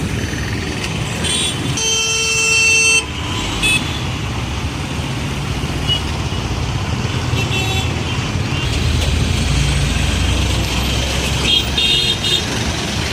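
Busy road traffic: engines rumbling steadily underneath while vehicle horns honk, with one long horn blast about two seconds in, the loudest sound, and several short toots later, including a quick series of toots near the end.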